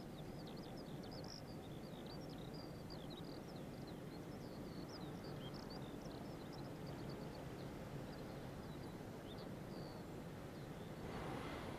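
Faint chirping of small birds, many short quick calls, over a steady outdoor background hiss. The calls thin out after about nine seconds, and a broader rushing noise comes up near the end.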